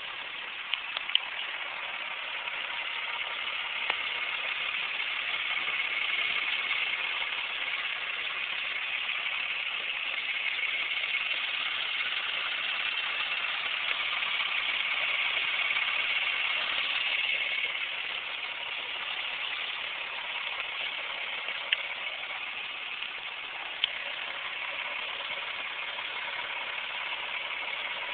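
1995 Toyota Camry V6 engine running at idle, with a steady high-pitched chirp that drops away about 18 seconds in and a few sharp, isolated clicks.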